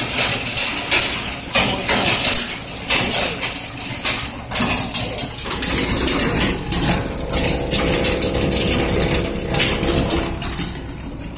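Meat and bone breaking machine running: a steady motor rumble under many irregular cracks and rattles as bone pieces are broken into granules. A steady motor tone comes up partway through.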